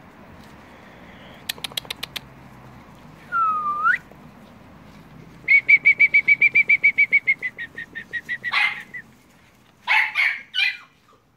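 A bird sings a rapid trill of about fifteen clear notes that slows and fades, after a short run of clicks and a single swooping whistle. Near the end come a few short, rough puppy barks.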